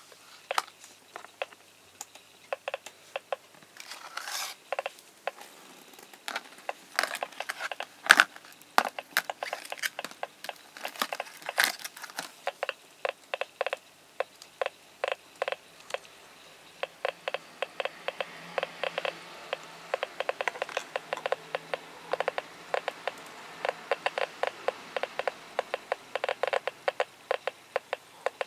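Geiger counter clicking as its large GM tube detects radiation, the clicks speeding up from a sparse, irregular ticking to several a second as a gas lantern mantle test source is measured. A few louder knocks and rustles of handling come in the first half, the loudest about eight seconds in.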